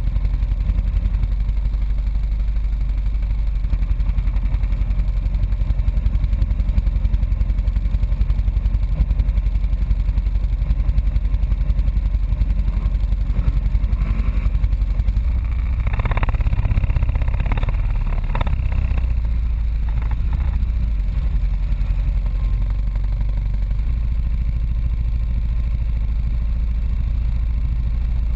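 ATV engine running steadily at low trail speed, heard up close from a camera mounted on the quad's rack. A cluster of knocks and rattles comes about halfway through as the machine jolts over rough ground.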